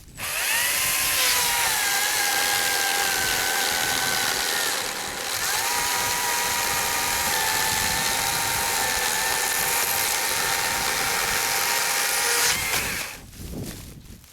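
Electric chainsaw running with a steady high whine. It starts just after the opening, drops a little in pitch after a second or so, and eases off briefly about five seconds in. It then runs again and stops near the end.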